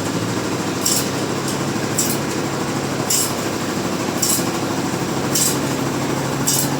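Sawmill machinery running steadily, with a short high-pitched hiss about once a second in a regular rhythm.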